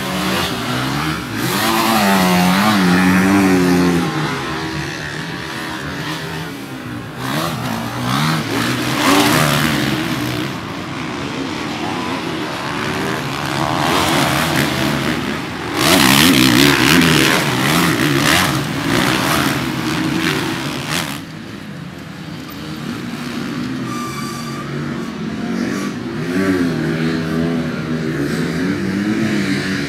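Motocross dirt bike engines revving hard and falling off as riders race past, the pitch rising and falling through gear changes. The loudest passes come about two, nine and sixteen seconds in.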